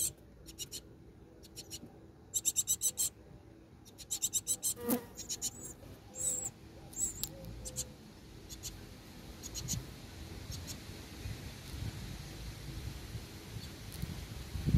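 Tit nestlings begging in the nest: rapid trains of thin, high calls in short bursts, repeated several times, fainter and sparser in the second half.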